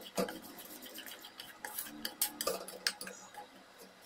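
A metal spoon stirring and scraping through wet whole-wheat batter in a stainless steel bowl, with irregular clinks of spoon against the bowl.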